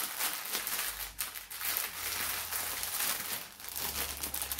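Plastic packaging crinkling and crackling as it is handled and opened to get at bags of diamond-painting drills.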